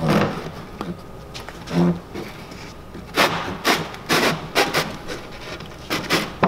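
Oriented strand board (OSB) pieces of a boat building form knocking and scraping together as one piece is worked by hand into a slotted joint. There are a few short knocks and rubs, mostly in the second half.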